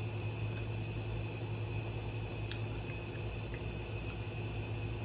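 Quiet chewing with a few faint clicks of the mouth, over a steady low hum in a small room.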